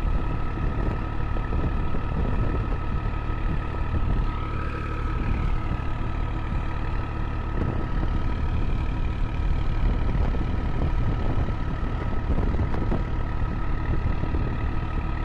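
Tractor diesel engine running steadily under load, driving a tube-well pump through its PTO shaft, with a steady whine over the low rumble.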